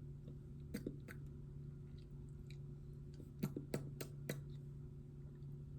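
Lips smacking and pressing together, working in freshly applied lip balm: two soft smacks about a second in, then four sharper ones in quick succession about halfway through, over a steady low hum.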